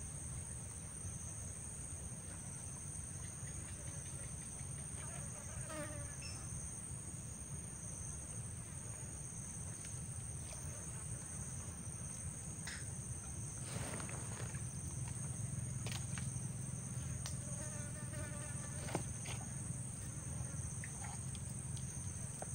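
Steady chorus of insects, a shrill high hum on two pitches, over a low rumble, with a few faint clicks.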